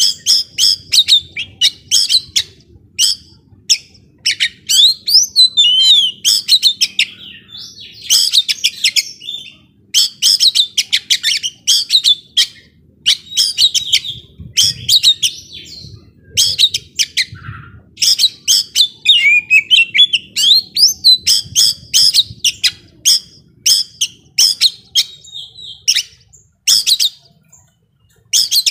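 Young male oriental magpie-robin singing hard in quick bursts of loud chirping phrases, packed with sharp clicks and a few falling whistles, with only short pauses between phrases.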